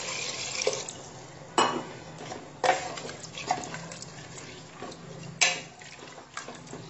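Water poured into a metal pressure cooker for about the first second. Then a spatula stirs the watery dal and knocks sharply against the cooker's side several times.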